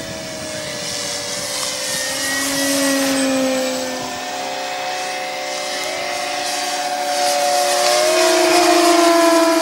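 Several E-flite Cessna 150 foam radio-control planes flying together, their electric motors and propellers whining at slightly different pitches that slowly drift up and down. The sound grows louder toward the end as two of the planes pass low and close.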